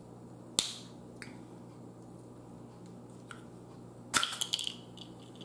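Baked crab shell being cracked and snapped apart by hand: one sharp crack about half a second in, a few faint clicks, then a quick run of cracks a little after four seconds.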